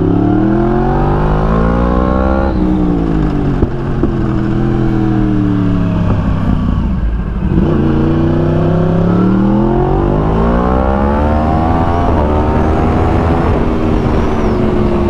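Yamaha R1's crossplane inline-four engine accelerating hard through the gears. Its pitch climbs, then drops sharply at an upshift about two and a half seconds in. It falls away with the throttle eased around six to seven seconds, then climbs again through another upshift near ten seconds.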